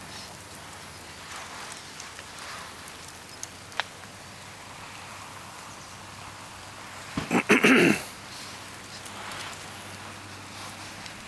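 Steady light rain falling on wet pavement and gravel. About seven seconds in comes one brief, loud burst of noise lasting under a second.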